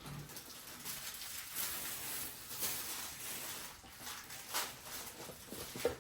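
Plastic grocery bags rustling as groceries are handled, in irregular crinkly swishes, with a short knock near the end.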